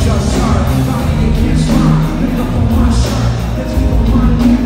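Live rock band with electric guitar and drums playing loud through a concert hall's PA, heard from among the audience.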